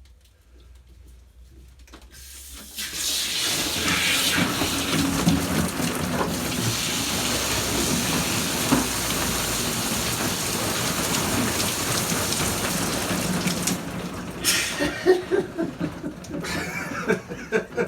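Mains water spraying hard from a freshly cut live supply pipe, a loud steady hiss that starts about two and a half seconds in. Around fourteen seconds in it dies down as the stop tap is banged onto the pipe end, followed by a run of knocks and splashes.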